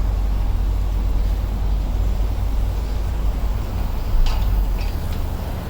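Steady low rumble, with a few short clinks about four seconds in.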